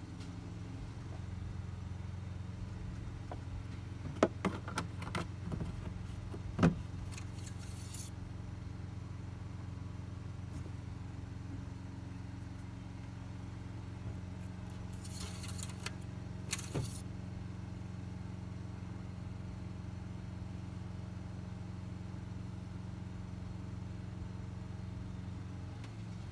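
Plastic oil jug and dipstick handled over an engine bay during an oil top-up, giving a few sharp clinks and rattles about four to seven seconds in and again around fifteen to seventeen seconds in. A steady low hum runs underneath.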